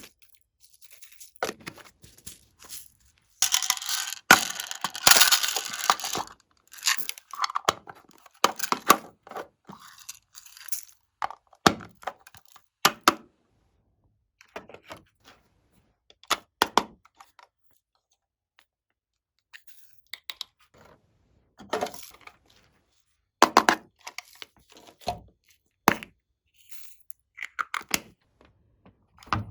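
Slime being worked and mixed by hand: sticky crackling, clicks and small pops in scattered short bursts, with a denser, louder stretch of crackling about four seconds in.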